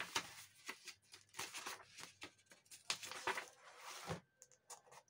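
Pages of a paperback book being flipped and turned by hand, a faint irregular run of soft paper rustles and flaps.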